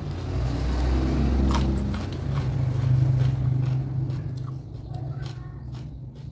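A motor vehicle's engine passing, a low rumble that swells, peaks twice and fades away, with a few crisp chewing clicks of someone eating raw vegetables.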